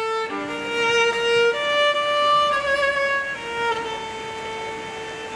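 Solo violin playing a slow melody of long held notes, a few with vibrato.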